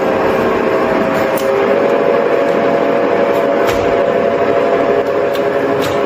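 Conventional engine lathe running steadily, its spindle and gearbox giving a constant whining hum, with a few sharp clicks. It is running on test after its chafed control wire, which had kept blowing the control-circuit fuse, was rerouted and repaired.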